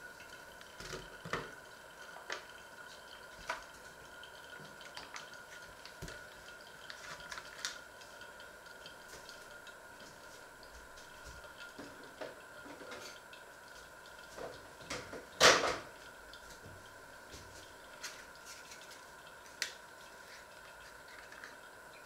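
Scattered light knocks and clicks of hands working at a kitchen counter as toast is taken from a pop-up toaster, laid on a wooden board and a plastic cream-cheese tub is handled. One sharper knock comes about fifteen seconds in. A faint steady whine runs underneath.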